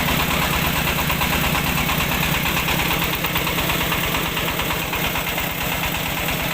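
Mobile rice milling machine running steadily, its engine making an even, rhythmic pulse with a continuous mechanical noise over it.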